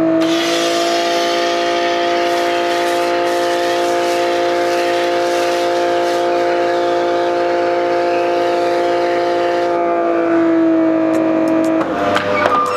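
Giraffe Tools electric pressure washer running, a steady whine of several held tones with the hiss of spray as it shoots soap through a metal foam cannon. The spray hiss stops about ten seconds in, and the motor whine cuts off about two seconds later.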